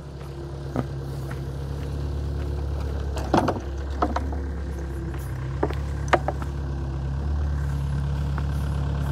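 Tracked excavator's diesel engine running steadily, growing louder as it is approached, with a few short sharp knocks over it.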